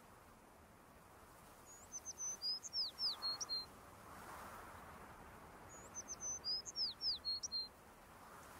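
A songbird singing: two quick phrases of high, clear, sliding whistled notes, about four seconds apart.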